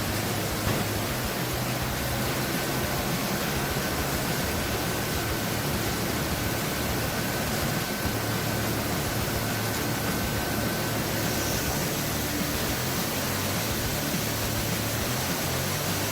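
Sawmill machinery running with a steady, even rushing noise and a faint high whine through the middle.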